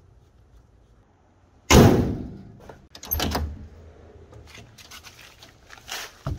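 A classic car's hood slammed shut with a loud bang about two seconds in, then the clicks and clunk of the driver's door being worked, with another knock near the end.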